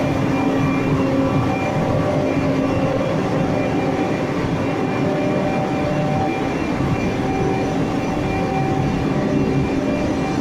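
Woodworking machinery running steadily: a constant mechanical hum with several held tones over a dense rushing noise.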